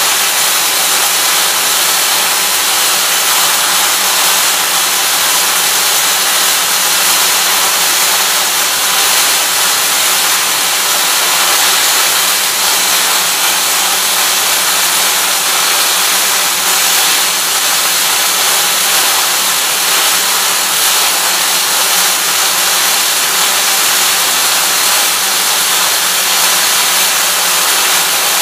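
Welding arc of a torque converter welding machine running a continuous weld on a converter: a loud, steady hiss with no breaks, over a steady low hum.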